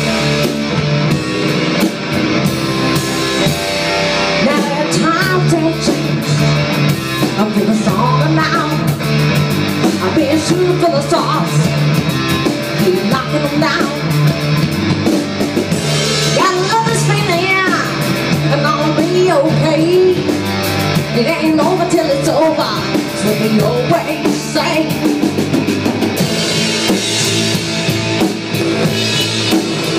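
Amateur rock band playing live: electric guitars and drum kit, with a melody line bending in pitch over the top from about four seconds in.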